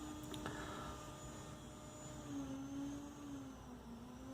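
Faint low hum in a quiet room. It drops slightly in pitch about two seconds in, with a couple of light clicks near the start.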